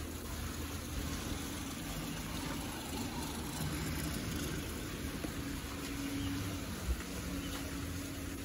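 Steady outdoor background noise with a faint low hum, and one soft thump about seven seconds in.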